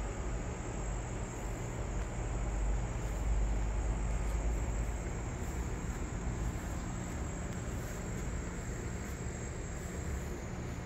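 Insects trilling in one continuous high tone, over a low rumble that swells a few seconds in and then eases.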